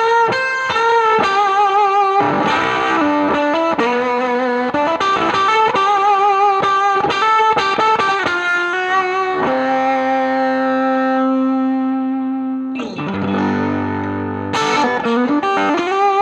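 Electric guitar played through a Spruce Effects Volcanoes silicon/germanium hybrid fuzz pedal into a Milkman The Amp 100 amplifier. It plays single-note lines with wavering vibrato, then a held note that rings out for about three seconds a little past halfway, then a low note before the picking resumes.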